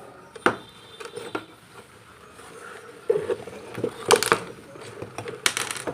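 Workbench handling noise: a few sharp clicks and knocks as a circuit board and tools are moved and set down, the loudest a close pair about four seconds in and a short cluster near the end.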